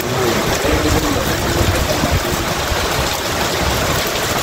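Heavy rain falling steadily, a continuous rush of water on concrete and metal canopies.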